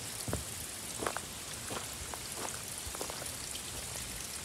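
Irregular crunching footsteps on a gravel trail over the faint, steady trickle of a small woodland stream.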